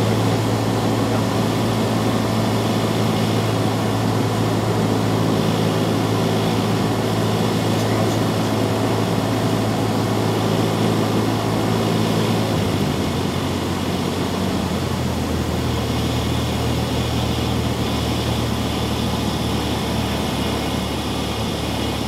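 Cessna 172's piston engine and propeller droning steadily in the cockpit on final approach. A little past halfway the drone steps down in pitch twice as power is pulled back for the landing.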